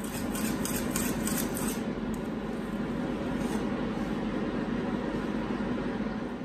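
A wire whisk stirring custard in an aluminium saucepan, with quick light scraping ticks against the pan during the first couple of seconds, over a steady background hum.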